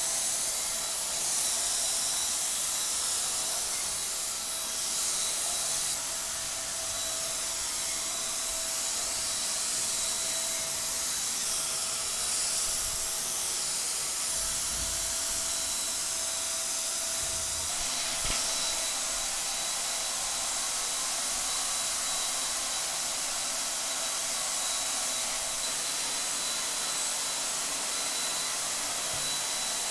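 Hose-fed electric paint sprayer running steadily while spraying thin paint: a continuous hiss of air and paint mist over a steady motor whine. One of the whine's tones drops out a little over halfway through.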